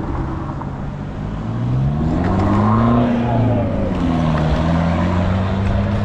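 A vehicle motor rising in pitch, then dropping back and holding steady, over a constant low rumble.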